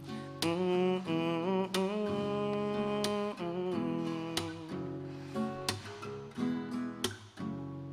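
Acoustic guitar being strummed in a steady rhythm, a firm strum about every second and a third with the chords ringing on between.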